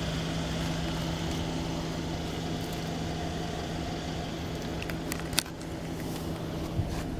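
Steady low hum of a Mercedes-Benz S550's 4.7-litre V8 idling, heard from the cabin through the open door, with a few light clicks about five seconds in.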